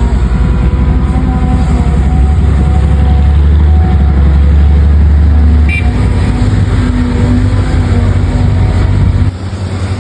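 Truck diesel engine sound running steadily, a dense low rumble with fine even pulsing; it eases off about six seconds in and drops again near the end.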